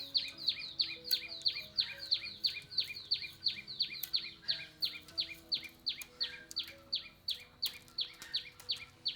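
A bird calling a long, rapid series of sharp downslurred notes, about four a second, which stops abruptly near the end. Soft background music with sustained notes plays underneath.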